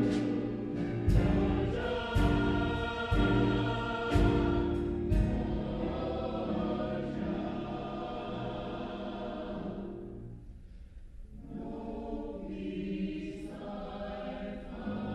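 Mixed choir singing, with sharp accents about once a second through the first five seconds. About ten seconds in the sound thins and drops briefly, then the singing carries on more softly.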